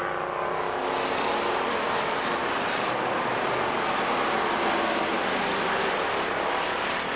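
A field of stock car engines running at speed together, a dense steady sound with several engine notes shifting in pitch as the cars race past.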